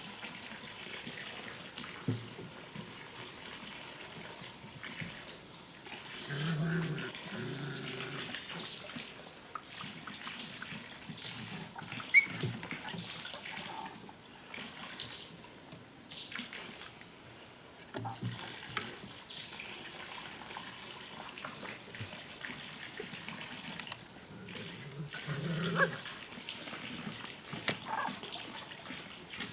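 A puppy making short pitched calls in two bouts, about six seconds in and again near the end, with scattered small knocks and taps between them.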